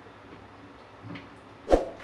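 Two knocks from hands-on installation work: a faint one about a second in, then a sharp, louder thump near the end.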